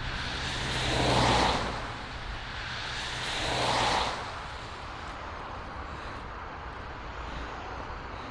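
Two cars driving past one after the other, their tyre and engine noise swelling and fading about a second in and again near four seconds. After that only a steady, quieter background noise remains.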